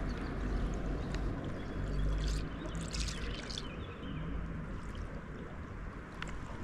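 Water running and trickling down a concrete-lined irrigation channel, a steady rushing sound with a few faint short clicks or splashes over it.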